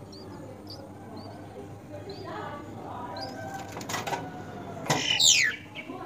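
Myna at its nest: small high chirps and a short cry, then rustling and a sudden flurry of wing flaps about five seconds in as the adult flies off, with a quick falling call.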